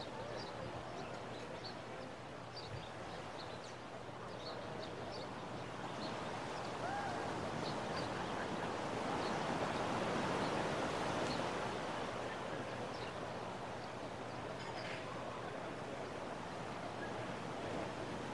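Ocean surf on a beach: a steady wash of waves that swells as a wave breaks about halfway through, then eases back. Faint short high chirps come now and then.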